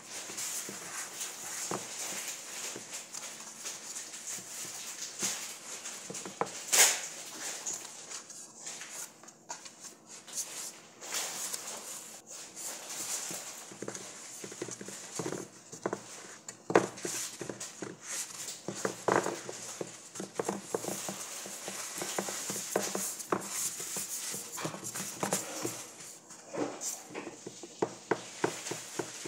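Hands pressing and spreading pizza dough in a round metal baking pan: soft rubbing and patting, with irregular light taps and knocks as the pan shifts on the countertop.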